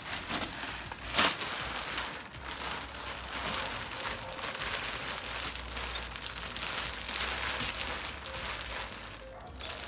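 Polythene bag rustling and crinkling as it is handled and pulled open from over a seedling, with a sharper crackle about a second in.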